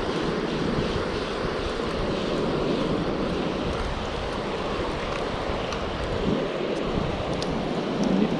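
Surf washing up on the beach, with wind rushing over the microphone in a steady noise.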